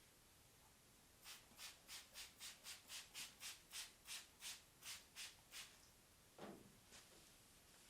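Hand sanding block rubbed back and forth over the primed body panel of a Porsche 911, about three short strokes a second for several seconds, then stopping. A single duller sound follows near the end.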